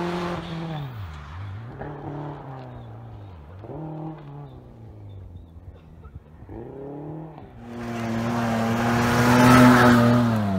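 Rally car engine accelerating away, its pitch dropping and climbing again with each of about three upshifts as it fades into the distance. About seven and a half seconds in, a louder engine at steady revs takes over as a pickup truck drives past close by, with tyre and gravel noise building to a peak near the end.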